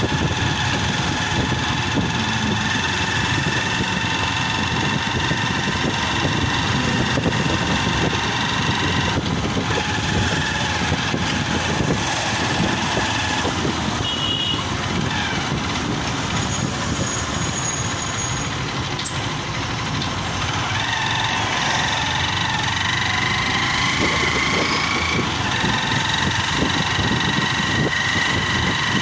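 Motorcycle engine running steadily as it rides slowly alongside a queue of idling cars, with steady traffic noise throughout.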